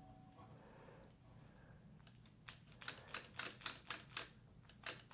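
Clutch lever on a motorcycle's hydraulic master cylinder pumped repeatedly, a sharp metallic click with each stroke, about four a second, starting about halfway in and pausing briefly near the end: the clutch is being bled of air bubbles.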